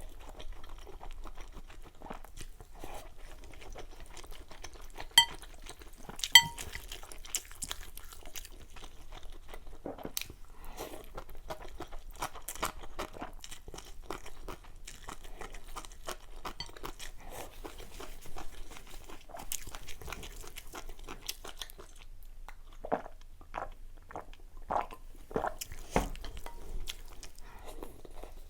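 Close-miked eating: steady chewing and crunching with many small mouth clicks and ticks. Two sharp ringing taps, like utensils striking a bowl, stand out about 5 and 6 seconds in.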